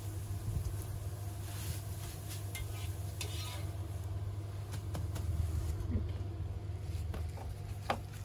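Long metal spatula scraping and tapping on a hot crepe griddle as a large crepe is lifted off and folded, with scattered light scrapes and clicks over a steady low hum.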